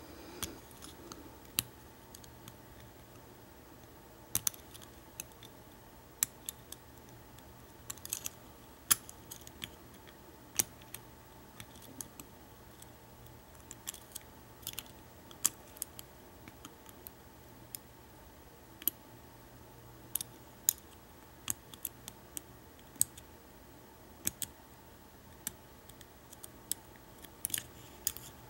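Small, irregular metallic clicks of a lock pick working the pin stack of an American Lock 1100 padlock under a tension wrench, roughly one or two clicks a second.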